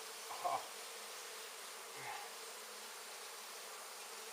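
Steady humming of a large honey bee colony massed in its hive, with a couple of faint short low sounds about half a second and two seconds in.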